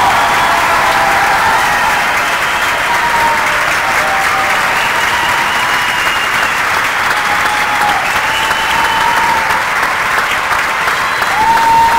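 Theatre audience applauding at length, steady dense clapping, with a few long, steady high-pitched tones held over it.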